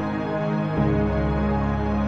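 Slow, calm music of long held chords, the chord changing a little under a second in.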